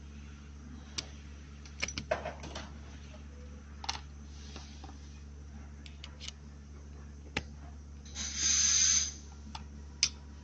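Small parts of a jigging reel being handled during disassembly of its brake assembly: scattered light clicks and taps over a steady low hum. About eight seconds in, a louder hiss lasts about a second.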